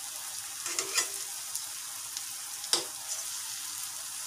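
Banana pitha fritters deep-frying in hot oil in a metal kadai: a steady sizzling hiss, with a sharp tap about a second in and another near three seconds.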